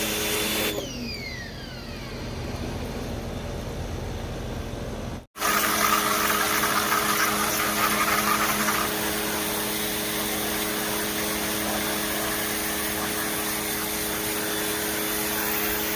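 Westinghouse ePX 1500 electric pressure washer motor running, then shutting off about a second in with a falling whine as it spins down. After a sudden break about five seconds in, a steady motor hum with a spray hiss comes back.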